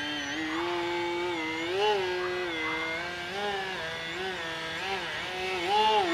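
Electric motor and propeller of an E-flite Edge 540 QQ radio-controlled 3D aerobatic plane whining. Its pitch rises and falls with throttle changes, swelling about two seconds in and again near the end.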